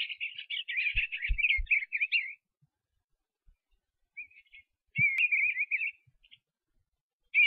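A small bird twittering and warbling in quick, high chirping phrases, in three bursts with pauses between, with a few soft low knocks.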